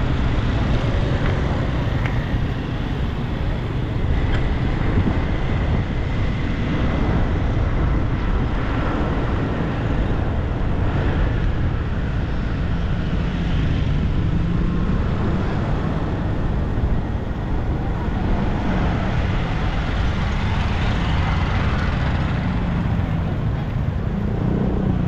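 Steady street traffic noise from motorbikes and cars, with a constant low rumble throughout.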